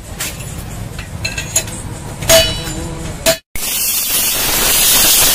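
A few sharp metallic clinks and taps of small metal parts or tools, the loudest about two and a half seconds in. Then, after an abrupt cut, a steady hiss like spraying begins.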